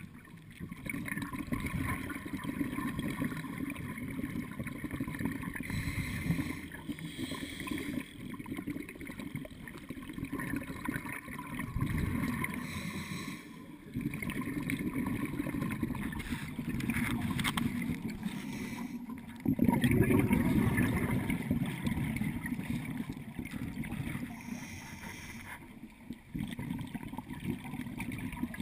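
Muffled underwater rumble heard through a camera's waterproof housing, swelling in surges every few seconds with a scuba diver's exhaled regulator bubbles. The loudest surge starts suddenly about twenty seconds in and lasts about two seconds.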